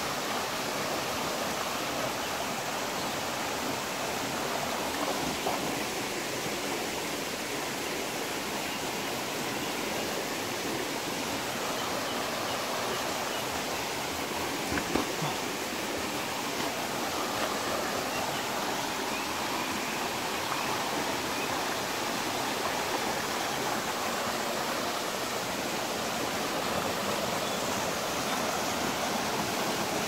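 Small waterfall splashing into a rock pool: a steady rush of falling water, with a few faint brief knocks about halfway through.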